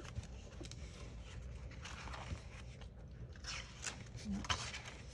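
Paper pages and pockets of a handmade journal rustling and scraping as they are handled and turned, in a few short bursts over a low hum.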